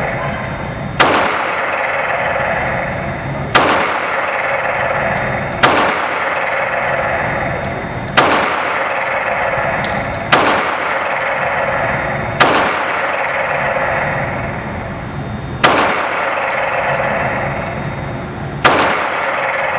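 Eight pistol shots from a CZ 97B .45 ACP handgun, fired slowly at about two to three seconds apart, each followed by a long echoing decay.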